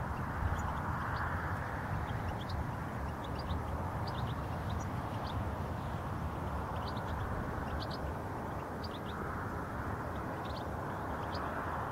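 Short, high chirping calls of European goldfinches, scattered irregularly throughout, over a steady low background rumble.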